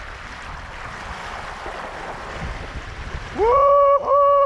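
Steady rush of water and wind as an electric hydrofoil board picks up speed under motor power. About three seconds in, a loud held two-part whoop, "wouhou", rises, holds with a short break in the middle, and falls away.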